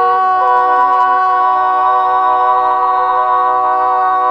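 Layered female voices singing a cappella, holding a sustained multi-voice chord on a drawn-out syllable between sung lines, with the lower voices stepping to new notes now and then.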